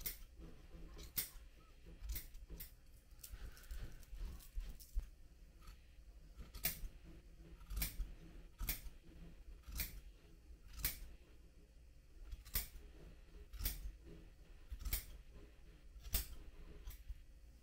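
Scissors snipping through the yarn pile of a tufted rug, carving and trimming the edges of the shapes. Short, crisp snips come about once a second.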